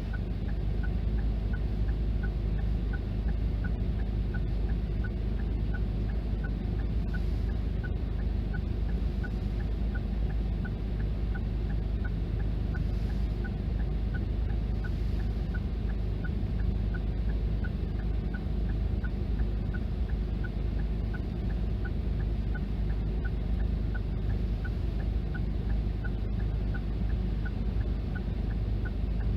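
Japanese level crossing alarm ringing steadily, about two rings a second, over a steady low rumble.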